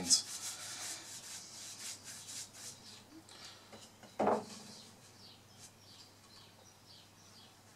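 Faint rubbing strokes of a brush on a maple baseball bat as water-based polyurethane clear coat is applied, with one short louder knock about four seconds in.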